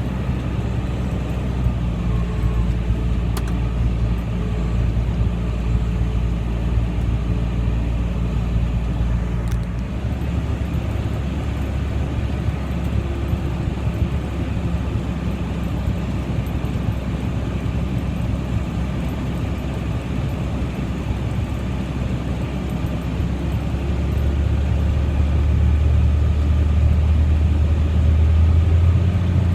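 John Deere 9220 four-wheel-drive tractor's diesel engine running steadily. Its low drone changes pitch about ten seconds in and grows louder near the end.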